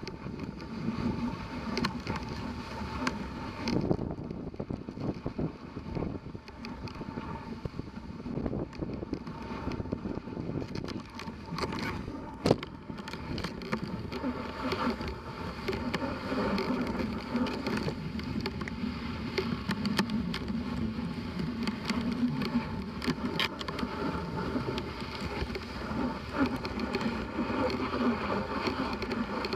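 Dog sled gliding over a packed snow trail behind a running dog team: a steady hiss from the runners on the snow, scattered small clicks and knocks from the sled, and one sharp knock about twelve seconds in.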